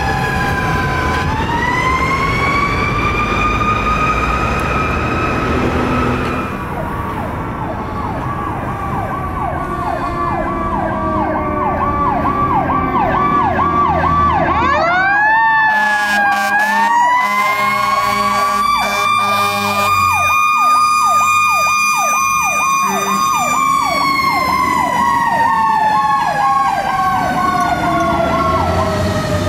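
Fire apparatus sirens: a mechanical coaster siren of the Federal Q type winds down, winds back up and holds a high wail, then winds up and down again later. From about six seconds in, a fast electronic yelp siren runs alongside, and a horn sounds around the middle.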